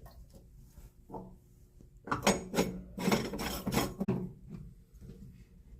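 Metal tools and parts clinking and scraping on a chrome commercial flush valve as its cover goes back on and is tightened, a burst of clattering strokes starting about two seconds in.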